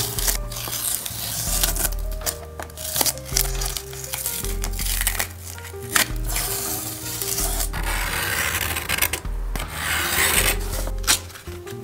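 Masking tape being peeled off watercolour paper, then the paper torn along a steel ruler, with a long ripping sound about eight seconds in. Background music plays throughout.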